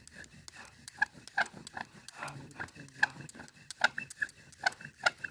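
Bow drill: the wooden spindle squeaking and rubbing in the hearth board's notch with each stroke of the bow, about two or three squeaks a second.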